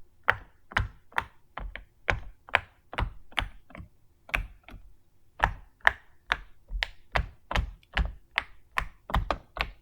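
Silicone push-pop fidget toy (a small unicorn poppet) having its bubbles pressed through one after another: a run of short, sharp pops, about two to three a second and slightly uneven, all the way through its rows.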